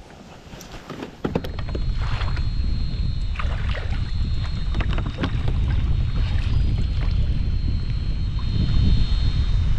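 Kayak moving on the water: a loud low rumble with wind on the microphone comes up suddenly about a second in. A faint steady high whine and scattered clicks and knocks sit over it.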